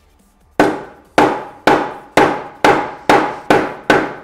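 Steel claw hammer striking a small 3D-printed PETG test slab on a stone board about eight times, in a steady rhythm that quickens a little. Each blow is a sharp knock with a short ring.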